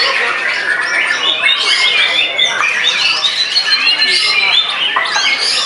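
Several white-rumped shamas (murai batu) singing at once, loud overlapping whistles, rapid trills and harsh scolding notes with no break.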